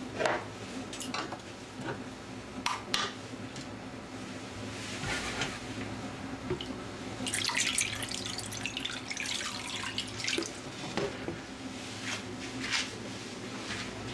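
Water running from a kitchen tap into a sink, heaviest from about seven to ten seconds in, with scattered clicks and clinks of kitchenware.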